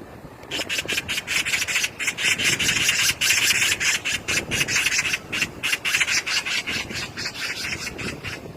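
Magpie chattering: a long, fast rattle of harsh, rasping notes that starts about half a second in and eases off toward the end.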